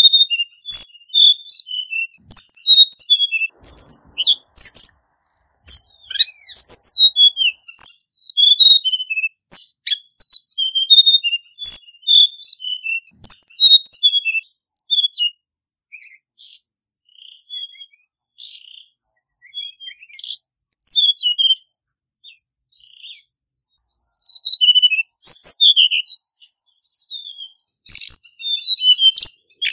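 Male hill blue flycatcher singing: quick phrases of high, sweet whistled notes that glide up and down, one after another with brief pauses between them.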